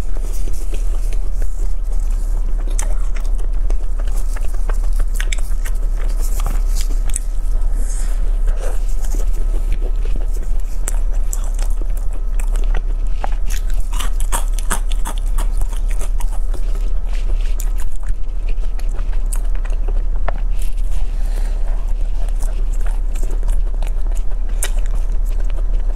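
Close-miked chewing and biting of a berry tart with a crisp pastry shell: many small crunches and wet mouth clicks, over a constant low hum.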